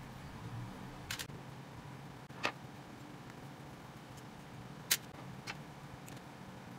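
Small scattered metal clicks and taps from motorcycle carburetor parts and a screwdriver being handled during disassembly over a steel tray: four sharp clicks, the loudest about five seconds in.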